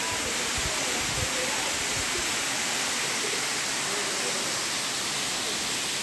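Waterfall rushing: a steady, even sound of falling water.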